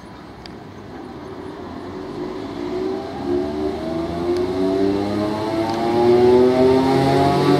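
Class 315 electric multiple unit pulling away, its traction motors whining and rising steadily in pitch as it gathers speed. It grows louder as it comes past close by.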